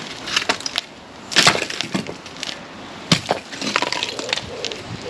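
Bricks knocking and clattering against each other as a loose brick pillar is worked by hand: a run of sharp knocks, the loudest about a second and a half in and another about three seconds in.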